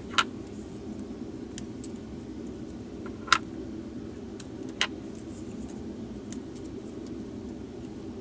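Small plastic drill-storage containers clicking and tapping as they are handled, with three sharper clicks (one right at the start, one about three seconds in, one near five seconds) over a steady low background hum.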